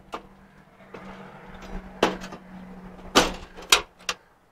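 A new sheet-steel battery box being forced into place in a Triumph TR2's body: about five sharp metallic knocks and bangs, the loudest a little after three seconds in, with a scrape of metal on metal in the first couple of seconds.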